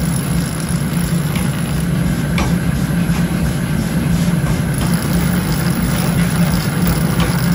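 Grinding wheel running with a steady low drone, while a forged steel hammer head is pressed against it on and off, grinding with a rasping hiss as it throws sparks.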